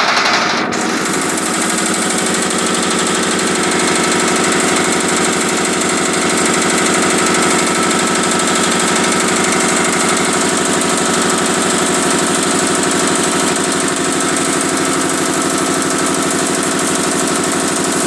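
Hand-cranked stationary single-cylinder diesel engine running after start-up. It changes abruptly within the first second, then settles into a steady, even firing beat.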